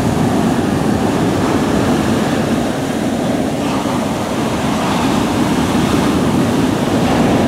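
Heavy storm surf breaking and rushing up the beach in a loud, steady roar, with wind buffeting the microphone.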